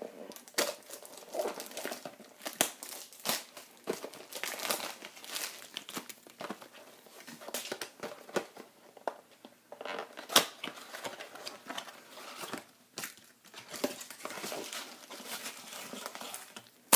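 Plastic wrapper of a baseball-card rack pack crinkling and tearing as it is opened, with sharp crackles throughout and one louder crack about ten seconds in.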